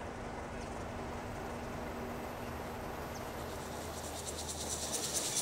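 Steady outdoor ambience with a faint low hum. Near the end a high, rapidly pulsing insect trill fades in and grows louder.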